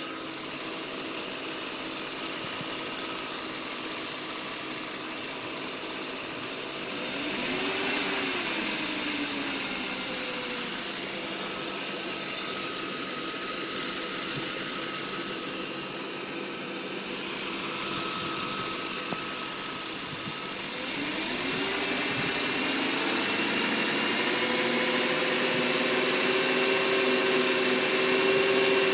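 BMW E39 540i's 4.4-litre V8 idling just after a start-up, with the ticking from the engine that shows only at start-up and goes away once it has run a few minutes. The revs rise and fall back twice, about eight and twenty-one seconds in.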